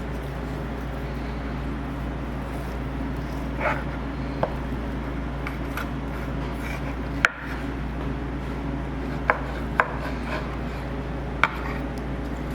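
Kitchen knife knocking on a cutting board about six times at irregular intervals while cutting a dry-aged porterhouse steak, the sharpest knock about seven seconds in, over a steady low hum.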